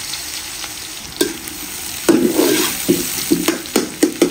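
Sliced onions sizzling in hot oil and ghee in a large metal pot. From about two seconds in, a metal slotted spoon stirs them, knocking and scraping against the pot several times a second over the frying.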